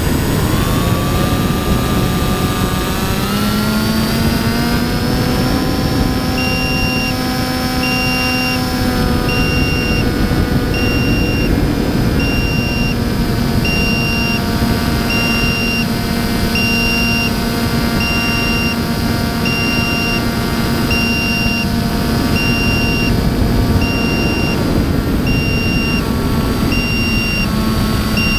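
Radio-controlled model airplane's motor and propeller running in flight, heard from on board with rushing air: the whine rises in pitch over the first few seconds as the throttle opens, then holds steady. From about six seconds in, a faint high beep pulses on and off about once a second.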